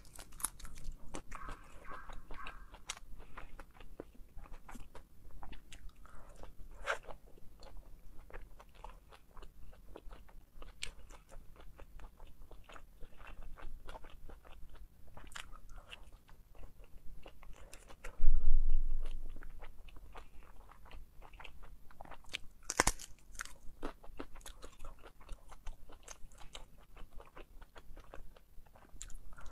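Close-miked chewing and biting of pan-fried dumplings: many small wet mouth clicks and crunches. About eighteen seconds in, a loud low thump, the loudest sound, fades over about a second, and a sharp click follows a few seconds later.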